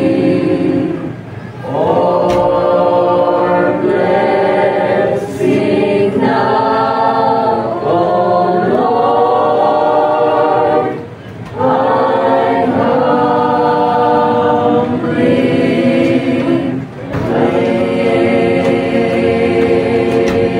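Mixed choir of men's and women's voices singing in long held phrases. The singing breaks briefly about a second in, again near the middle, and about three-quarters of the way through.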